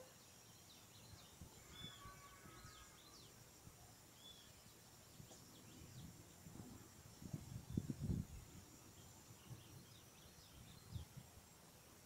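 Quiet pond-side ambience with scattered short, high bird chirps. About seven to eight seconds in there is a brief cluster of low thumps, the loudest sound here, and one more thump near the end.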